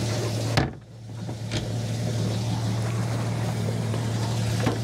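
Boat's outboard motor idling with a steady low hum under a wash of wind and water noise, broken by a few sharp clicks, the first about half a second in.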